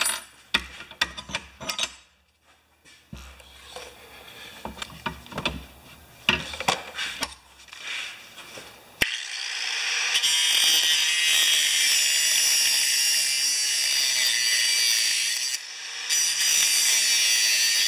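Scattered knocks and clanks of the steel flange and tools being handled and clamped in a bench vise. About halfway through, a handheld angle grinder starts grinding the flange's edges and runs steadily, with a brief let-up near the end.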